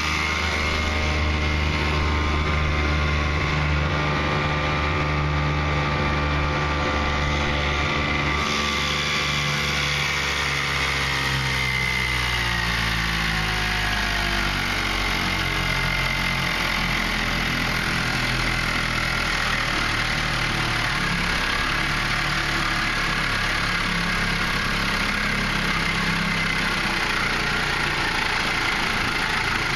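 1973 Eska 5 hp two-stroke outboard motor running under way, then throttled back at the tiller. Its pitch falls over several seconds, starting about ten seconds in, and settles at a lower steady speed.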